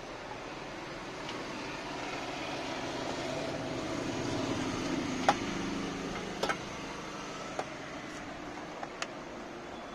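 A low droning hum that swells through the middle and fades again, with a few sharp clicks and taps from the red sheet-metal amplifier cabinet being handled.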